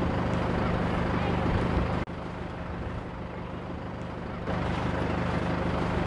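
A large vehicle's engine idling steadily. Its level drops suddenly about two seconds in and comes back up about four and a half seconds in.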